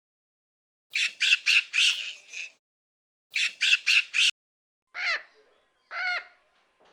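A bird squawking: two quick series of harsh calls, five and then four, followed by two shorter, clearer calls that rise and fall in pitch.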